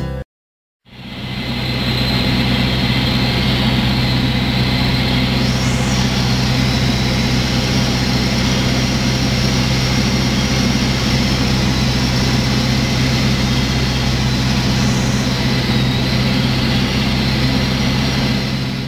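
Morane-Saulnier Rallye ST 100 light aircraft's piston engine and propeller, a steady, loud drone heard from inside the cockpit in cruise flight, with a constant hiss of airflow. It fades in about a second in after a brief moment of silence.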